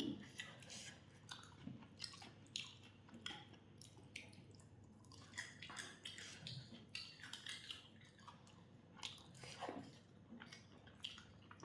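A person chewing fried chicken close to the microphone: faint, irregular wet mouth clicks and smacks.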